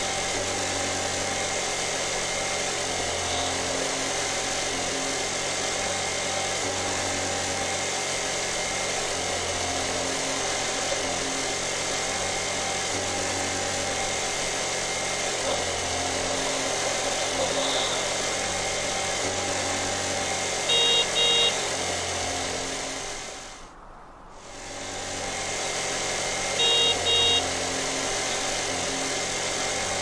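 Scooter engine running steadily at an even pitch, with a horn giving a quick double beep twice in the last third. Between the two beeps the engine briefly fades away and comes back.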